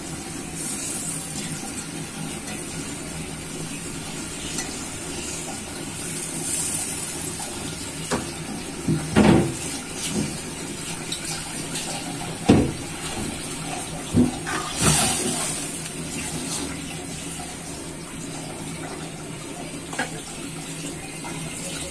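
Watery tomato broth simmering in a metal pan on the stove, a steady bubbling hiss. Several sharp knocks of metal pots or utensils come through the middle.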